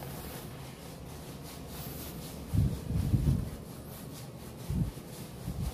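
Exfoliating scrub glove rubbing over skin lathered with Moroccan soap, with a few dull low thumps about two and a half seconds in, around three seconds and near the end.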